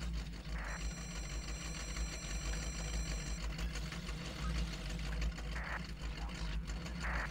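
Steady low mechanical rumble and hum, with three short hiss-like bursts and a thin high whine for a couple of seconds about a second in.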